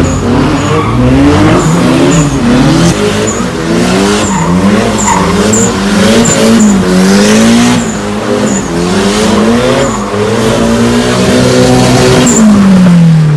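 Cars drifting in tandem: an engine revving up and down over and over as the driver works the throttle, with tyres squealing and skidding, the revs dropping away steadily near the end.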